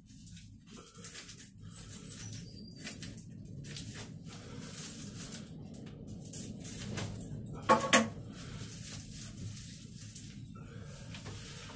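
Scissors cutting into a cardboard packing tube and hands pulling at its packing tape: irregular crackling and crinkling, with a couple of sharper snaps about eight seconds in.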